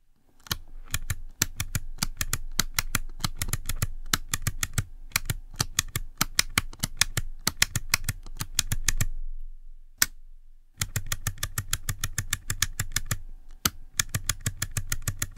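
Miniature toggle switches flipped by hand in quick succession: a run of sharp clicks, several a second, with a pause of about a second and a half just past the middle. The switches are clocking data bits by hand into an AVR microcontroller's ISP programming interface.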